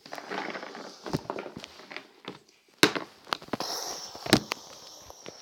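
Scattered knocks and clicks with some rustling; the two sharpest come about three and four and a half seconds in.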